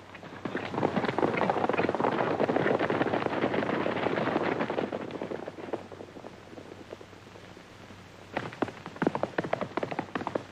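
Hoofbeats of several horses galloping away together, a dense clatter that fades out after about five seconds. Near the end comes the lighter, sparser hoofbeat of a single horse galloping.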